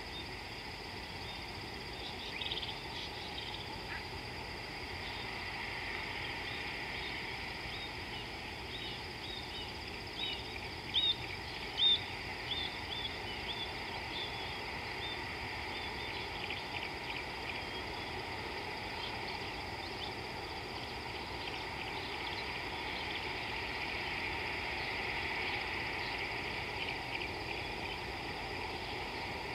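Bush ambience: birds calling in short repeated chirps, busiest and loudest about a third of the way in, over a steady high insect drone.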